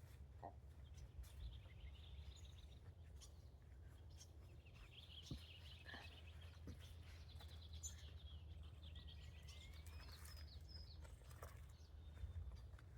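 Faint birdsong: scattered high chirps and trills over a steady low rumble, with a few light clicks.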